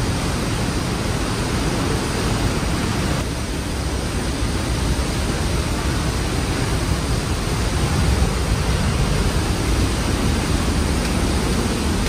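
Trümmelbach Falls: a strong current of water pouring through a narrow rock gorge, making a loud, steady rushing noise.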